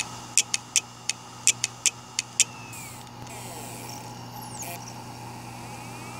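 A failing 3.5-inch Western Digital hard drive clicking: about nine sharp clicks in uneven groups over the first two and a half seconds, then a falling whine, over a steady low hum. A short burst of scratchy noise comes about three quarters of the way in. This is the "click of death" of a failing drive.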